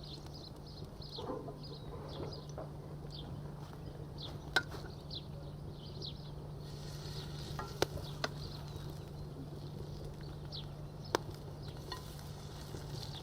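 Fish patties frying in oil in a frying pan, sizzling, with four sharp clicks spread through it, as of a utensil against the pan.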